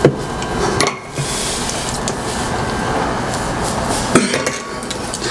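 Metal hanging chain and hook clinking while a light fixture is hung from a ceiling hook, with three sharp knocks: one at the start, one about a second in, and one a little after four seconds.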